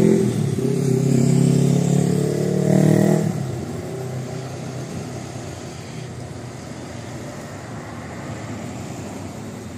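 Diesel engine of a three-axle double-decker bus accelerating away, a strong steady engine note that fades out about three seconds in, leaving a low hum of street traffic.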